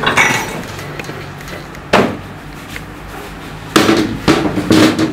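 Metal parts of a Mercedes-Benz power steering rack knocking and clanking as they are handled: a knock at the start, another about two seconds in, then three ringing clanks near the end.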